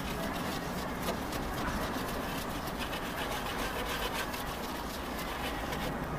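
Stiff flat bristle brush scrubbing back and forth over a crumpled, textured paper surface on a board, dry-brushing paint on in a quick run of rubbing strokes.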